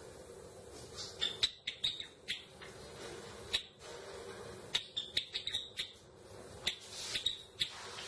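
Java sparrow giving short, sharp chipping calls in quick clusters: a run about a second in, another around the middle, and a few more notes near the end.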